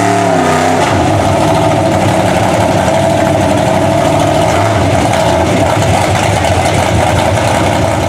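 Lifted Chevy mud truck's engine revving, the pitch rising and falling for about the first second, then held steady at high revs with a dense rushing noise beneath, as its tractor-tread tires churn the muddy water.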